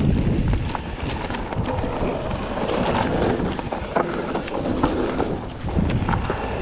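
Commencal mountain bike descending a rocky gravel trail: wind rushing over the camera microphone and tyres rolling over loose stones, with frequent small clicks and knocks from stones and the bike rattling.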